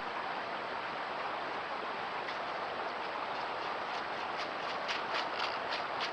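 Steady hiss of a trail camera recording, with a quick run of light crunching footfalls in the second half, typical of deer moving through dry leaves.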